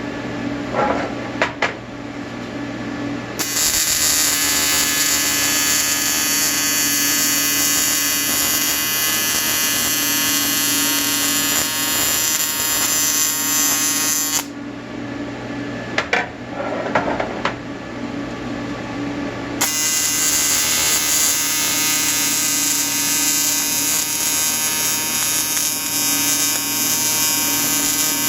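Electric welding arc buzzing steadily with a high hiss. It is struck about three seconds in, stops for about five seconds in the middle, then is struck again. A lower machine hum carries on through the pauses, with a few brief knocks in them.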